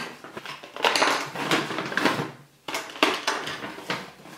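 A stiff paper shopping bag rustling and crinkling as hands rummage in it and pull products out, in two long bouts with light knocks of packaged items.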